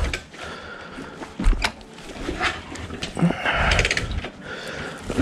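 Motorcycle being kick-started because its battery is dead: clicks and knocks from the kick-start lever and the engine turning over, then the engine catches and runs steadily right at the end.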